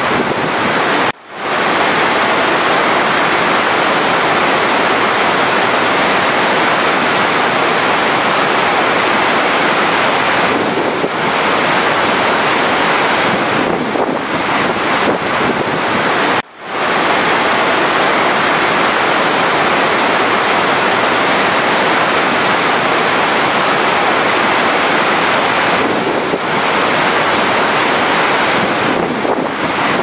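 Large waterfall running: a steady, loud rush of falling water. It cuts out briefly twice, about a second in and again midway.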